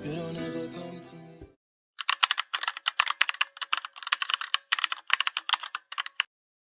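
Background music fading out over the first second and a half, then computer keyboard typing: rapid key clicks in uneven bursts for about four seconds, stopping abruptly.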